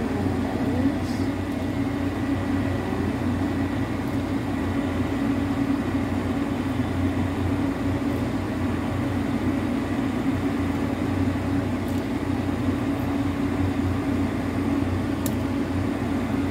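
Steady hum of a running machine, with a few faint light clicks spaced a few seconds apart.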